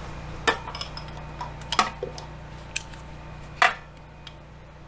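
Hand tools clicking and clinking against metal while a generator's fuel hose is worked on: a few sharp, separate clicks, the loudest about three and a half seconds in, over a steady low hum.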